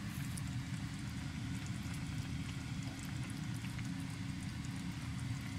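Chicken sotanghon broth bubbling gently in the pot, a steady low simmer with faint scattered pops.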